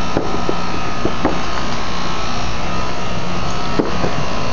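Steady fan noise with a low hum, and a few light clicks and knocks about a quarter second in, around a second in and near the end.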